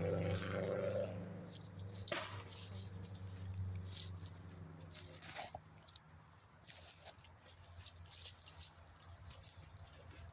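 A vehicle's low engine hum fading away over the first few seconds, followed by scattered light rustles and clicks.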